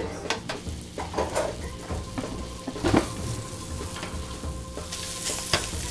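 Chorizo sausage sizzling in a hot nonstick frying pan, cooking in its own fat, while a wooden spatula knocks and scrapes against the pan as the link is broken up. The sizzle grows stronger near the end.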